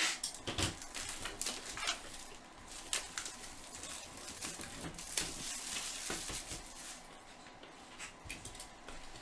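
Crinkling and clicking of a trading-card box and its packaging as it is handled and opened: irregular rustles and small taps, thinning out after about seven seconds.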